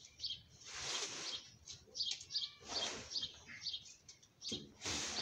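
Small birds chirping in quick, repeated high notes, with three louder noisy swishes about two seconds apart.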